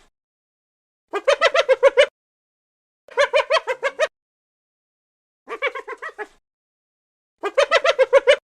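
An animal call repeated four times, each call about a second long and made of quick pulses, the calls about two seconds apart.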